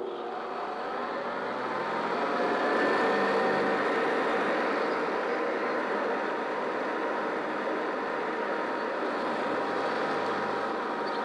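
Kirby upright vacuum cleaner switched on and running on carpet: the motor's whine rises in pitch over the first two or three seconds as it spins up, then holds steady and loud.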